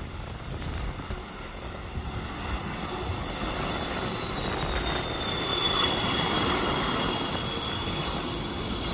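Korean Air Airbus A330-323 on final approach with gear down, its two Pratt & Whitney PW4000 jet engines making a rumble and a high whine. The sound grows steadily louder as the airliner nears, and the whine drops slightly in pitch around the middle.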